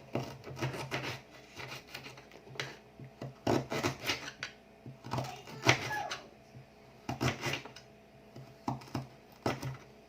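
Kitchen knife slicing fresh ginger root on a cutting board: a string of irregular knocks, some in quick clusters, as the blade cuts through and strikes the board.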